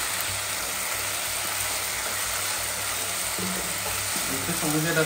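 Goat meat frying in spiced masala in a pan, sizzling steadily while a wooden spatula stirs and scrapes it.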